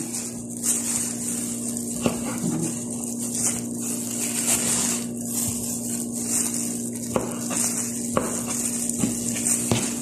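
Kitchen knife cutting through the white pith of a citron into cubes on a plastic cutting board, with a few sharp knocks of the blade on the board, over a steady hum and hiss.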